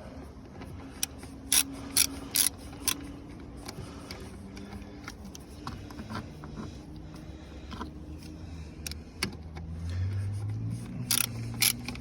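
Quarter-inch drive ratchet clicking in short strokes as screws are run down snug, with several sharp, louder clicks in groups.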